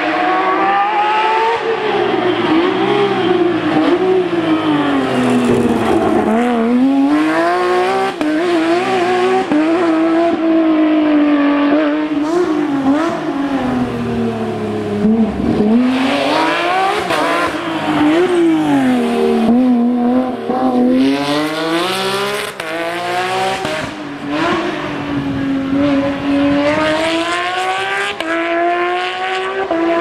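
Porsche 911 GT3 rally car's flat-six engine, revving hard at full throttle. The revs climb and drop again and again as it shifts gear and lifts off through the corners.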